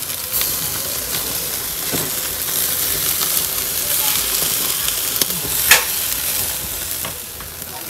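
Sausages and beef burger patties sizzling on a barbecue grill over an open flame: a steady hiss with scattered crackles, and one sharper pop about three quarters of the way through.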